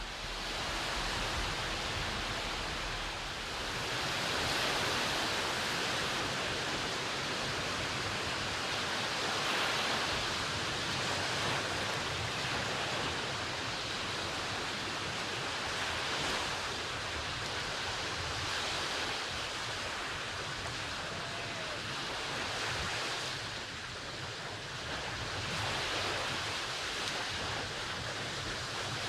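Ocean surf washing onto a beach, a steady rush of waves that swells and eases every few seconds, with some wind on the microphone.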